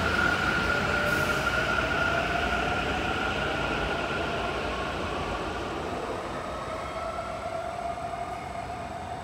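Taichung MRT train pulling out of the station and speeding up. A motor whine rises slowly in pitch over a steady high tone while the running noise fades away.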